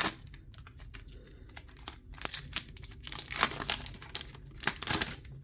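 Packaging of a trading-card box being ripped open: several bursts of tearing and crinkling.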